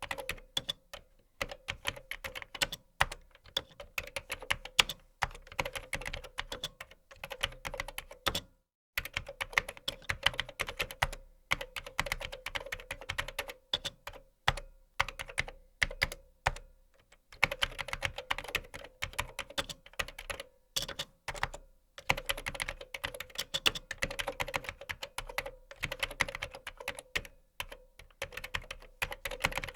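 Typing on a computer keyboard: quick runs of key clicks with short pauses between them, one longer pause about a third of the way in.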